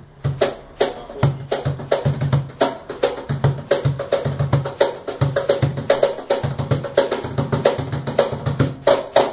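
Pithy Turbo cajón, a wide box cajón with twelve internal snare wires, played by hand in a fast groove: deep bass strokes mixed with sharp, buzzing snare slaps.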